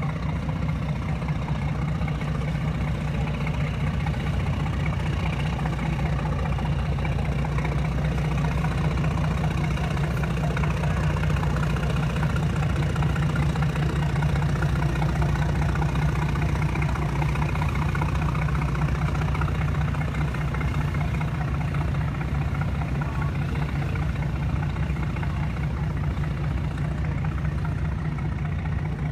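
Boat engine idling steadily, a constant low hum with an even pulsing throb.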